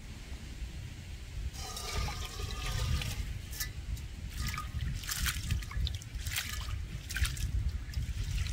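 Water poured and splashing, starting about one and a half seconds in and going on in uneven trickles and splashes, over a steady low rumble.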